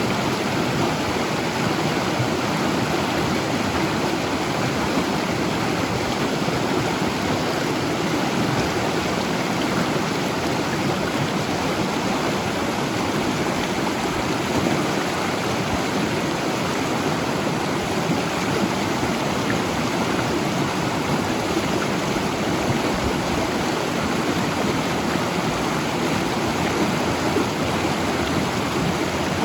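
Mountain river rushing steadily over rocks, an even, unbroken water noise.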